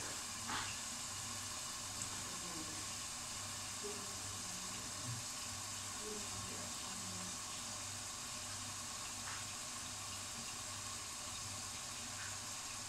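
Steady hiss of a covered pot simmering on the stove, with a few faint ticks.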